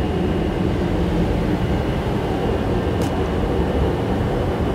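John Deere 1070 tractor's diesel engine idling steadily, warmed up.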